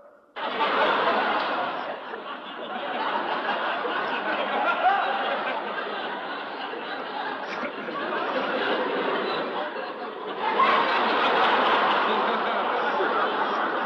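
People laughing and snickering, with some chatter mixed in; the laughter gets louder about ten seconds in.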